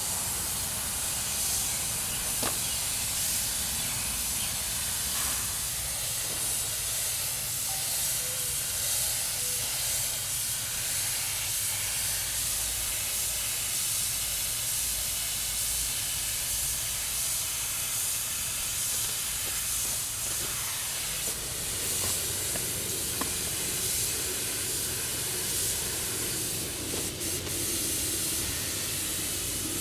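Compressed-air paint spray gun hissing steadily as it sprays primer, with a low steady hum underneath.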